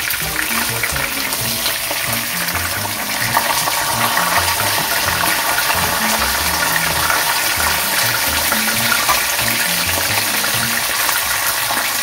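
Whole parrot fish sizzling in hot oil in a frying pan, a steady crackling hiss. Background music with a low bass line plays underneath.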